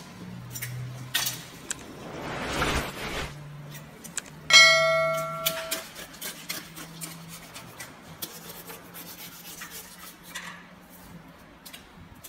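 Knife scraping and slicing through a large fish on a plastic cutting board. About four and a half seconds in there is a single loud metallic clang that rings like a bell for over a second.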